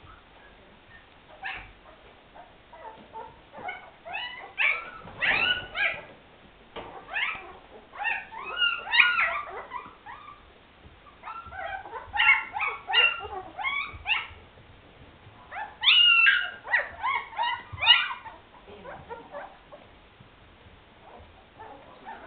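Young Afghan Hound puppies whimpering and squealing: high-pitched cries in four spells of a couple of seconds each, fading out near the end.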